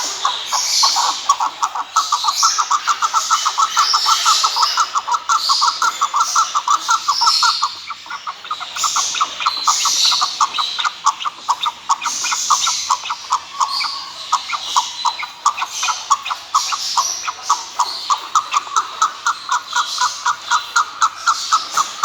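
Chukar partridge calling: a long, unbroken run of rapid, repeated clucking notes, several a second, with higher chirps scattered over it.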